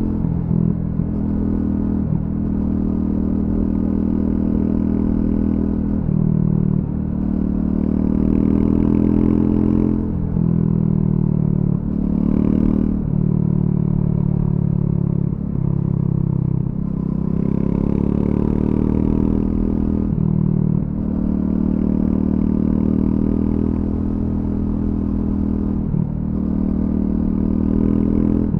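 Triumph Scrambler 400 X's single-cylinder engine through its stock exhaust, ridden on a narrow road. The revs climb and drop again and again, with a brief dip every few seconds as the rider comes off the throttle and pulls again.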